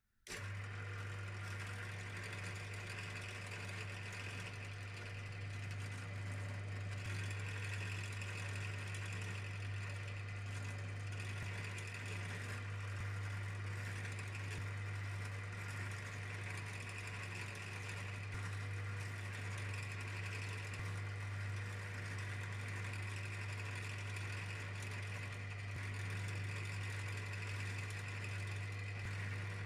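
Bench drill press motor running with a steady low hum, its small bit spotting hole marks through a paper template on a polished metal plate.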